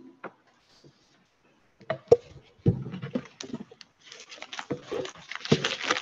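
Sheets of paper handled and rustled close to a lectern microphone, with irregular knocks and thumps from about two seconds in and a thicker rustling over the last two seconds.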